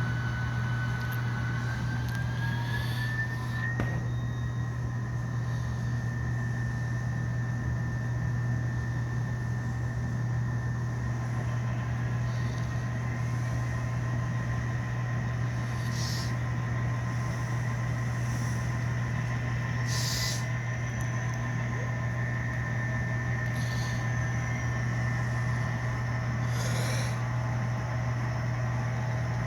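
HO scale model Norfolk Southern SD40-2 diesel locomotive running, a steady low hum with a whine that rises in pitch about two to four seconds in and then holds. Several short hisses come over it near the end.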